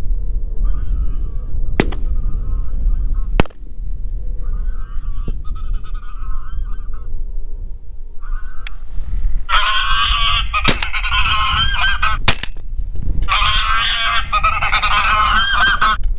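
Geese honking in bouts, faint at first and then loud and many overlapping from a little past the middle. A few sharp clicks or knocks fall between the calls.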